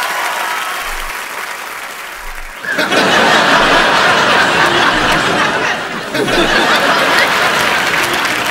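Studio audience applauding. The clapping thins out over the first couple of seconds, then comes back suddenly and loudly about three seconds in and keeps going.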